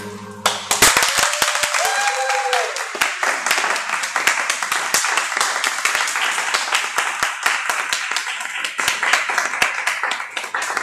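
Performance music stops about half a second in and an audience breaks into applause and cheering, with a whoop about two seconds in; the clapping keeps going steadily.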